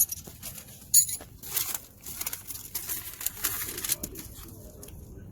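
Old car carpet being pulled up off the floor of a 1994 Chevy Caprice, an irregular run of rustling and tearing with sharp crackles, loudest at the start and about a second in; the carpet is stuck down with adhesive.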